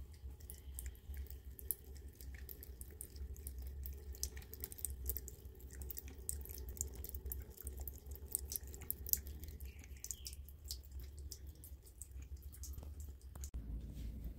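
Thin stream of water from a bathroom tap trickling and dripping while a cat laps at it: a fast, irregular patter of small wet clicks over a low steady hum.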